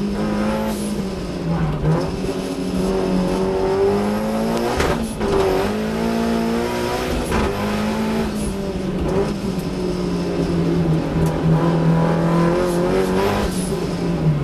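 Datsun race car's engine heard from inside the cabin, driven hard. The pitch climbs under throttle and drops back repeatedly as the driver changes gear and lifts for corners, with a falling note near the end.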